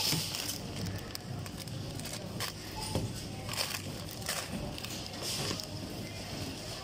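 Plastic snack wrappers crinkling and items knocking in a plastic shopping basket, in irregular bursts, as groceries are handled.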